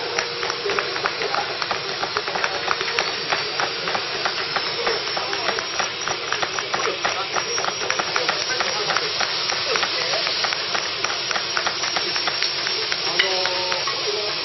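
Carbide-tipped stone chisel pecking a granite block in rapid, steady taps, several a second, dressing the surface to a bush-hammered finish.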